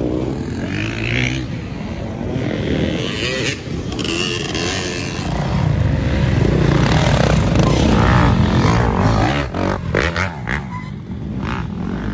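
Dirt bike engines revving and running. The sound is loudest in the middle, and a few sharp clacks come shortly after.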